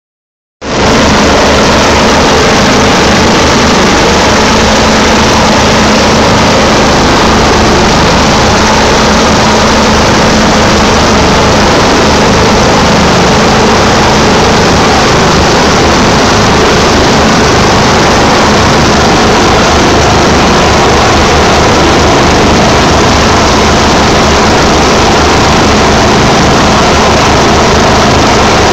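Rescue helicopter hovering close by: loud, steady rotor chop with engine noise, cutting in just after the start and holding unchanged.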